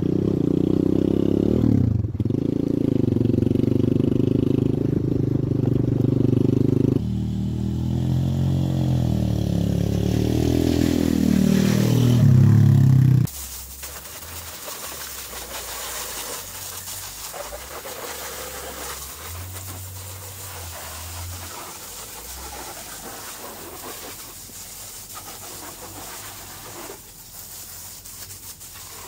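250cc quad bike engine running while being ridden, steady at first, then revving up and down and rising sharply before cutting off suddenly about 13 seconds in. After that comes a quieter, steady hiss of water spraying from a garden hose onto the quad.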